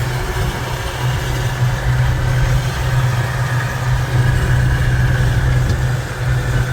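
Steady drone of a farm vehicle's diesel engine running at a constant speed, with a strong low hum.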